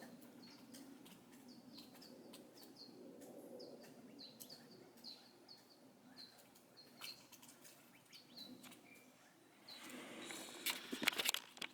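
A small bird chirping faintly outdoors: a long series of short, high chirps, one or two a second, with clicks and rustles near the end.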